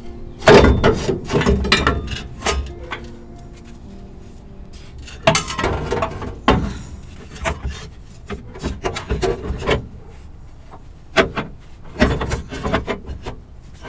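A rusty exhaust pipe section from an old catalytic converter being worked free by hand, scraping and knocking against the underside of the truck in irregular bursts. The clatter is loudest about half a second in, again around five to six seconds in, and near the end.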